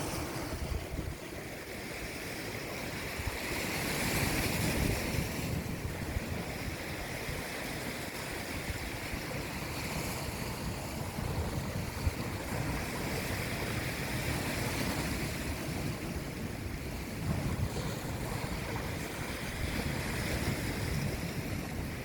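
Sea waves washing in and drawing back, the rush swelling and fading every five or six seconds, with wind buffeting the microphone.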